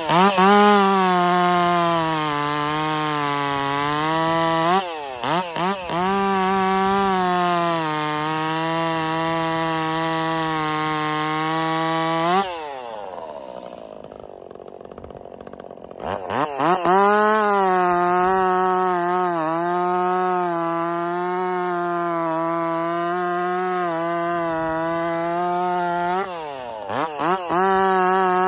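Stihl MS 261 C 50cc two-stroke chainsaw with a custom-built muffler, run at full throttle while bucking a poplar log; its pitch sags a little as the chain loads up in the cut. The throttle is blipped a few times about five seconds in and again near the end. It drops back to a quieter idle for a few seconds around the middle, then revs up for another cut.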